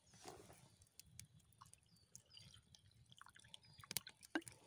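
Mostly near silence with a few faint clicks; near the end, water is poured from a plastic bottle into a metal mug.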